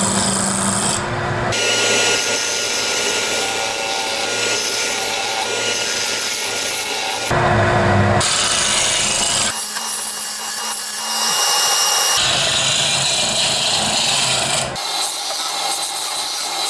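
Small benchtop wood lathe running with a steady motor hum while a spinning wood blank is turned: a turning tool scraping and cutting the wood, and sandpaper rubbing against it. The sound changes abruptly several times.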